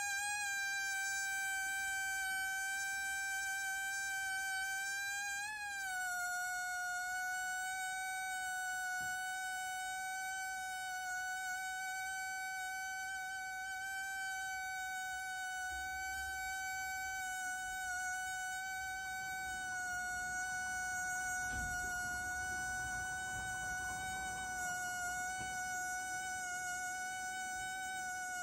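Rubber balloon vibrating with a steady, high-pitched buzzing tone. The pitch wobbles briefly about five seconds in and then holds steady.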